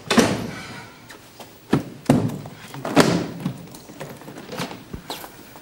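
A door shutting with a loud thunk, then several sharper knocks and thumps of bags being set down and footsteps on a wooden floor.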